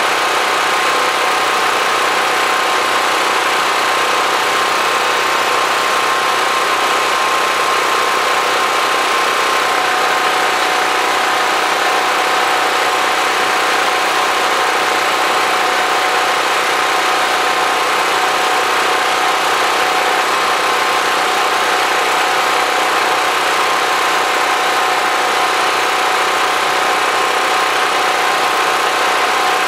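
Portable generator running steadily, a loud continuous engine drone with a faint steady whine in it.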